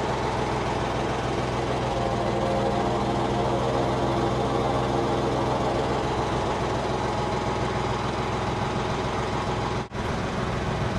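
Case 580K backhoe's diesel engine running steadily at idle. The sound drops out for a moment near the end.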